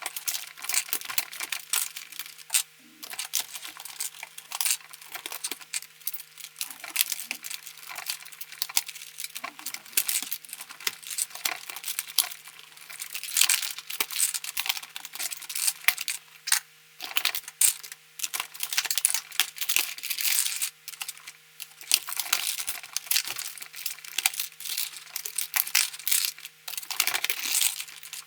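Keycaps being pried off a Logitech G213 keyboard: a dense, irregular run of sharp plastic clicks and rattles, over a faint steady hum.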